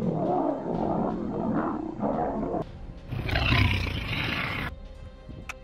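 Lion growling and roaring in two rough bouts, the second louder and deeper, over background music.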